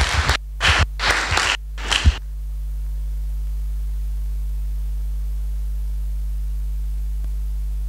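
A few short bursts of noise in the first two seconds, then a steady low electrical mains hum from the sound system, which sets in suddenly and holds at an even level.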